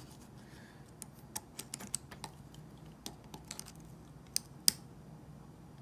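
Irregular light clicks and taps of small plastic and metal trimmer-head parts being handled, with two sharper clicks a little past the middle.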